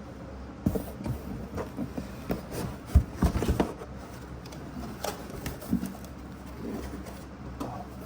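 Packaging being handled by hand while unboxing: irregular taps, knocks and rustles of cardboard and styrofoam packing, with a quick run of louder knocks about three seconds in.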